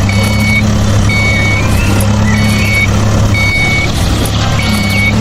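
Vehicle reversing alarm beeping, five half-second beeps about one a second, over the low steady hum of an engine.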